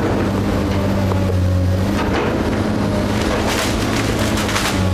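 Komatsu hydraulic excavator's diesel engine running with a steady hum while its arm crunches through the wooden debris of a demolished house, with cracking and crashing of wood and timber about two seconds in and again, more heavily, in the second half.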